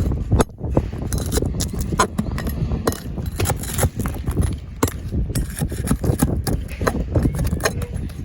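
Steel flat bar prying and scraping out old asphalt shingles and nails: a run of irregular knocks, clicks and scrapes over a steady low rumble.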